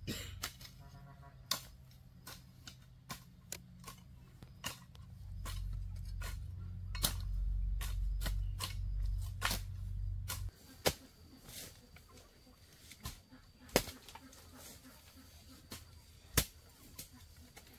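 A run of irregular sharp knocks and clicks, a few to a couple per second, with a low rumble from about five seconds in that cuts off suddenly about halfway through.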